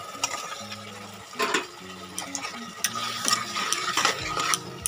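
Raw mutton pieces dropped into hot masala in an aluminium pressure cooker and stirred with a metal spatula: repeated scrapes and clinks of metal on the pot, with a light sizzle of frying. The loudest scrape comes about one and a half seconds in.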